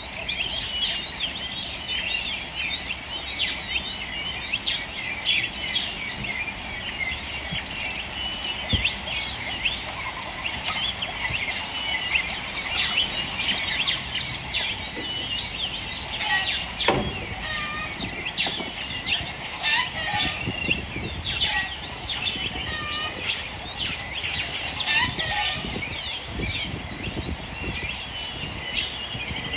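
A flock of birds chirping busily, many short overlapping calls throughout, with a single sharp knock about halfway through.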